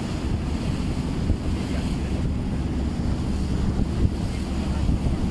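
Wind rumbling on the microphone over the steady wash of choppy sea water, heard from a boat on open water.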